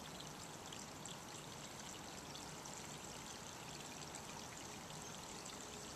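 Steady, faint rush of running water, like a lake outlet spilling into a stream.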